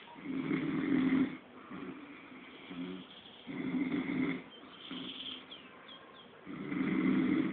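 A man snoring in his sleep: three long, rough snores about three seconds apart, each drawn in on a breath, with softer breathing sounds between them.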